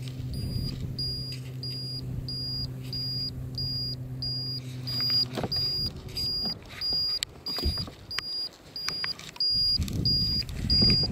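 An electronic alarm beeps steadily, about two short high-pitched beeps a second. Under it a low steady hum stops about halfway through. Gear knocks and rustles as it is handled in the second half.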